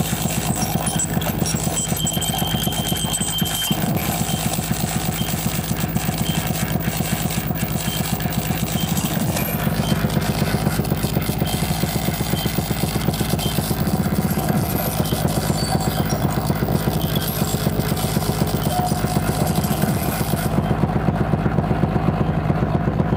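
Live electroacoustic sound played from a laptop and hand controllers through loudspeakers: a dense, rapidly pulsing electronic texture over a heavy low drone. The upper hiss cuts out near the end while the low pulsing goes on.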